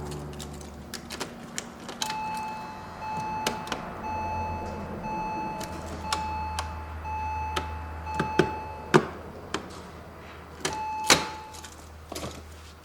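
A Porsche Boxster 986's interior warning chime beeping repeatedly, about two steady beeps a second for several seconds, then once more near the end. Sharp clicks and knocks from work in the car come in between, the loudest two in the second half.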